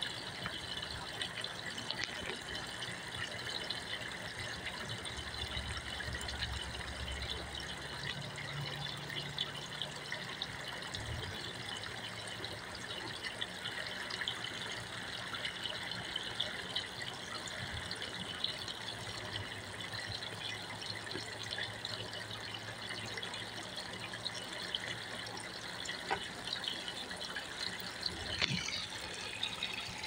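Steady running or splashing water with a faint low hum under it.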